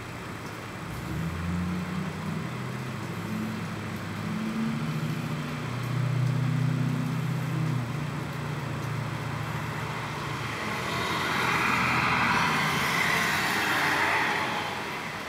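A motor vehicle's engine running with its pitch shifting, then a swelling rush of road noise as a vehicle passes, fading shortly before the end.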